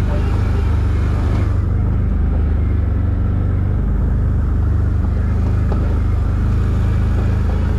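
ATV engine running steadily at low trail speed, a constant low drone; its higher hiss drops away for a few seconds about a second and a half in.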